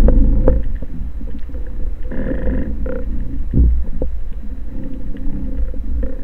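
Muffled underwater sound through a camera housing: a steady low rumble of moving water, with a short hissing rush about two seconds in and a few faint clicks.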